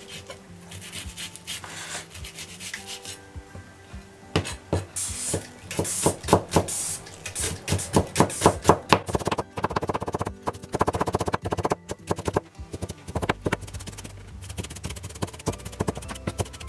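Chef's knife finely mincing onion on a plastic cutting board: scattered taps at first, then quick runs of knife strikes on the board from about four seconds in, with some scraping of the blade. Soft background music runs underneath.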